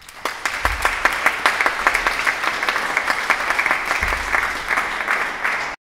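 Audience applauding, many hands clapping at the end of a talk, cut off abruptly near the end.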